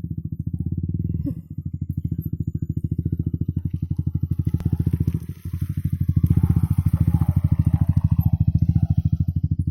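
Yamaha R15 V3's single-cylinder engine running at low revs with a steady, even pulsing beat. It dips briefly about a second in and again just past five seconds, then gets louder from about six seconds.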